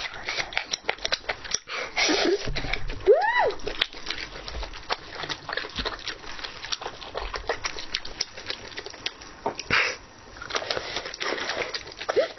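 Close-miked mouth sounds of someone chewing chewy octopus tentacle: many wet clicks and smacks. There is a short pitched sound that rises then falls about three seconds in, and another near the end.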